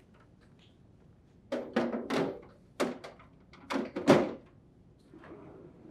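Plastic ice container being set into a plastic freezer drawer basket: several short knocks and scrapes of plastic on plastic, about a second apart.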